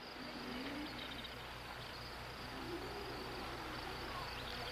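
Insects chirping steadily as a constant high shrill, over a low steady hum.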